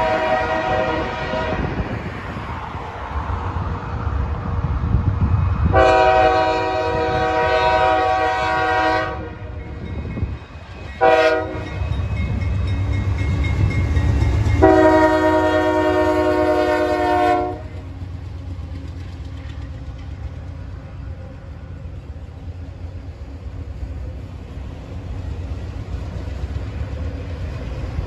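Nathan Airchime K5H five-chime air horn on a freight locomotive sounding a grade-crossing sequence: a blast ending about a second in, a long blast, a short one, then a final long blast. The train then rumbles and clatters past.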